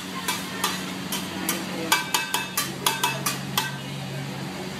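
A flat metal spatula clacking against a hot iron griddle, about three strikes a second as it chops and turns frying food, over a steady sizzle. The strikes stop about three-quarters of the way through, leaving only the sizzle.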